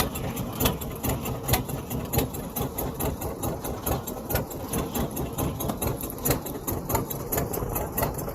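Fishing boat's engine running steadily with a rapid clacking beat.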